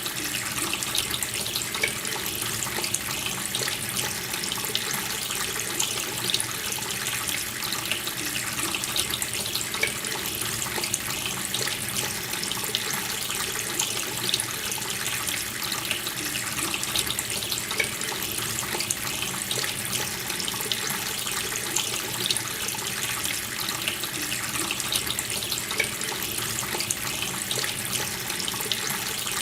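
Water running steadily from a tap, a continuous splashing rush with small irregular splashes.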